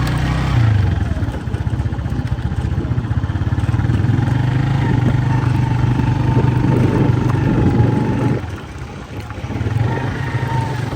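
A small engine running steadily, its note dropping away a little over eight seconds in.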